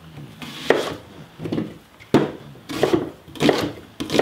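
Chef's knife chopping an onion on a wooden cutting board: about five sharp knocks of the blade meeting the board, unevenly spaced.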